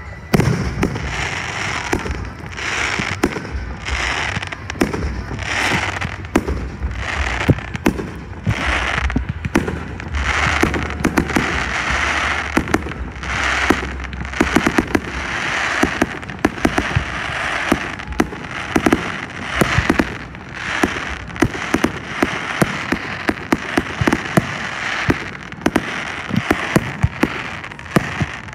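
Aerial fireworks shells bursting in quick succession, a dense string of bangs mixed with the crackle and hiss of the bursting stars.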